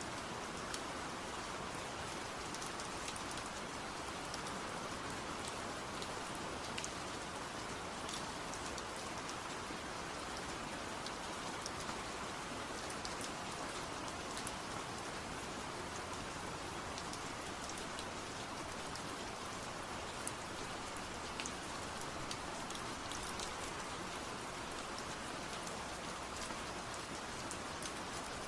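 Steady rain falling: a continuous even hiss with scattered sharper drop ticks.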